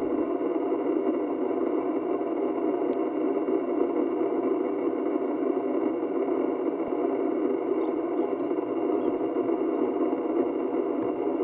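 A steady low mechanical hum with several held tones, even in level throughout. A few faint high chirps come a little after halfway.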